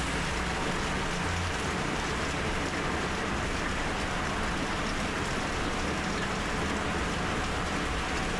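Steady hiss of rain and wet-road tyre noise heard from inside a moving coach's cabin, over the low drone of the bus's Hino diesel engine.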